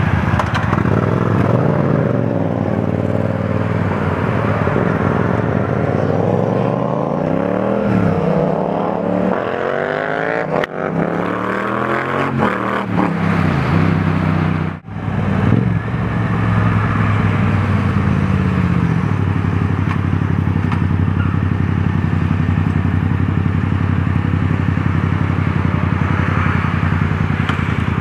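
Yamaha MT-07 parallel-twin engine pulling away and accelerating up through the gears: its pitch climbs and drops several times in the first half, then settles into a steady cruise. Wind rushes over the helmet-mounted camera while riding.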